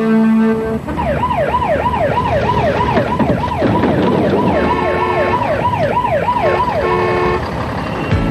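Emergency vehicle siren wailing in fast rising-and-falling sweeps, about two a second, with a second, steadier siren tone overlapping in the middle; it stops shortly before the end. A held musical chord ends in the first second.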